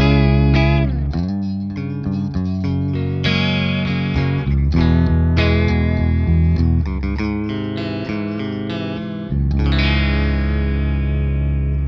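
Electric guitar played through an EarthQuaker Devices Aqueduct vibrato pedal: held chords and single notes whose pitch wobbles steadily up and down, with a new chord every second or two.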